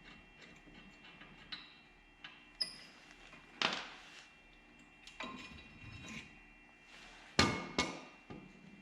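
A few sharp metal clanks and knocks, each with a short ring, from work on a truck's brake caliper bracket and its bolts; the loudest two come close together near the end.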